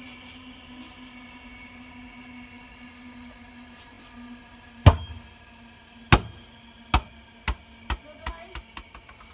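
A ball landing hard and bouncing to rest: one loud first impact about five seconds in, then about eight bounces coming quicker and softer. A faint steady hum runs under the first half.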